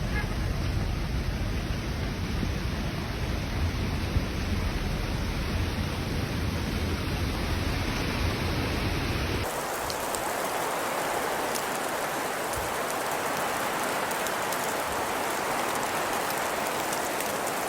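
Steady hiss of falling rain or wet snow. A low rumble runs underneath in the first half and cuts off abruptly about halfway through, where the hiss turns brighter.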